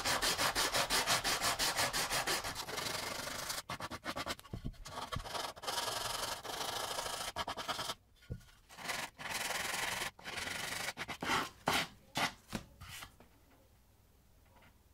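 Sandpaper rubbed by hand over the edges and corners of a wooden cutting board, easing the sharp edges. Quick, even back-and-forth strokes for the first few seconds, then longer, uneven strokes with short pauses, stopping about 13 seconds in.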